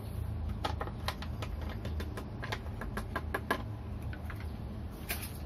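Scattered light clicks and crackles of a plastic flour packet being handled as all-purpose flour is shaken out into a bowl, mostly in the first three and a half seconds, over a steady low hum.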